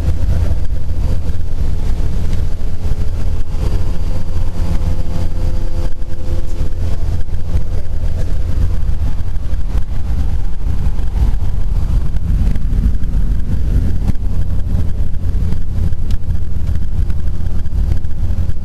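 Small skydiving aircraft's engine and propeller, heard from inside the cabin in climb: a loud, steady, deep drone that does not let up.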